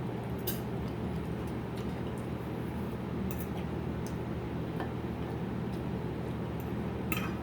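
A person eating: a few faint clicks of mouth and cutlery sounds now and then over a steady low hum.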